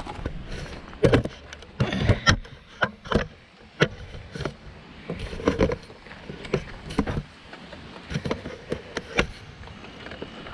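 Irregular close knocks and thuds, one to three a second, from footsteps on dry dirt and the handheld camera being jostled.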